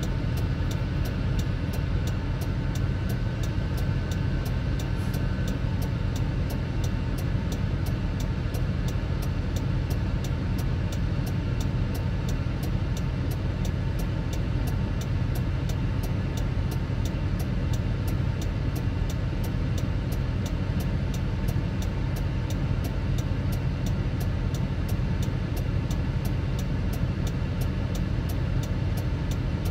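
Truck engine idling steadily, heard from inside the cab, with a faint even ticking about twice a second.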